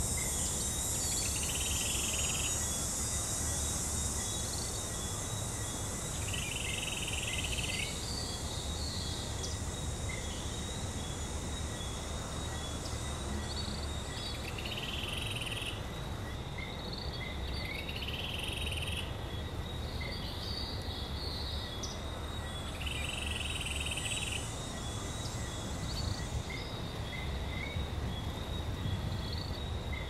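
Rainforest ambience: a waterfall's steady rush under a constant insect drone, with a call of about a second repeating every four to six seconds. A higher insect hiss thins out about halfway through.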